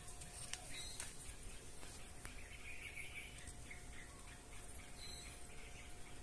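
Faint bird chirps in the background, with a few light clicks and rustles from a root ball being handled into a plastic grow bag.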